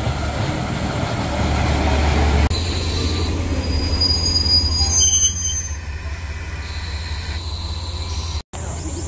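Train running on rail with a steady low rumble, joined from a couple of seconds in by high-pitched squealing of the wheels against the rails. The sound drops out briefly near the end.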